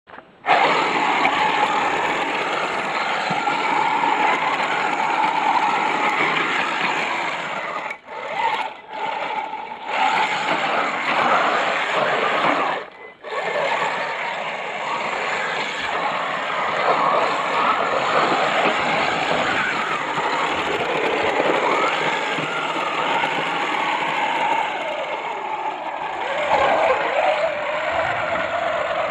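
Brushless outrunner electric motor (Turnigy G32, 530 kV) of a homemade RC tracked vehicle running under load through mud, a whine that rises and falls with the throttle. The sound cuts out briefly about eight seconds in and again near thirteen seconds.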